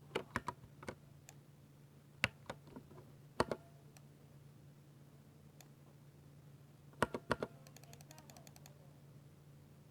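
Keystrokes on a 60% mechanical keyboard with silver speed switches: scattered presses in short clusters, with a pause of a few seconds in the middle and a quick run of light ticks a little after it. A faint steady low hum sits underneath.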